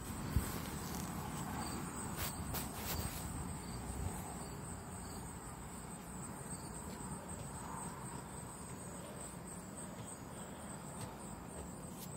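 Crickets chirping steadily, a faint high-pitched trill, with a few soft knocks in the first few seconds.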